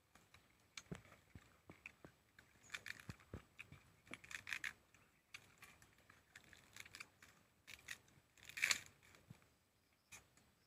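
Faint tearing and crackling of fibrous wild date palm tuber being stripped apart by hand, in scattered short clicks and rasps, with one louder tear near the end.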